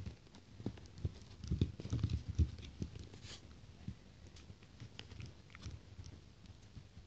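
Dogs moving and nosing about on a bed: irregular soft thumps and small clicks, busiest about two seconds in.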